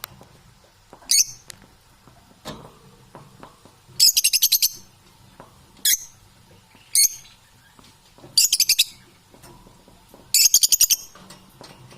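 Parrot calling in short, sharp, high-pitched bursts about every second or two, some of them quick rattling trills of several notes.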